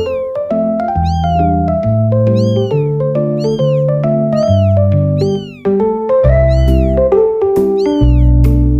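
Background music with short, high kitten meows, each rising then falling in pitch, repeated in time with the beat about every two-thirds of a second.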